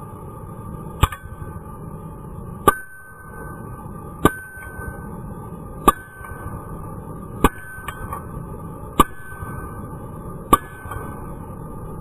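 Hammer blows on hot steel laid on a car brake rotor used as an anvil, seven evenly paced strikes about one and a half seconds apart, each leaving a metallic ring, while the knife's tang is drawn out. A steady rushing noise runs underneath.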